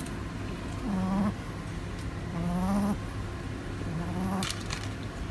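A sleeping dog snoring: three pitched, snoring breaths about a second and a half apart.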